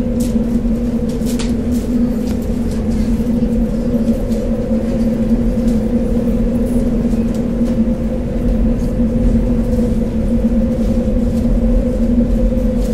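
A machine hum, steady and unchanging in pitch, over a low rumble, with scattered light clicks and knocks.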